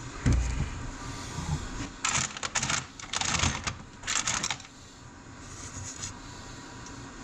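A knock, then three short bursts of clicking and rattling: small loose metal pieces being stirred about in a Turbo 350 transmission oil pan. The pieces are debris from its broken roller clutch.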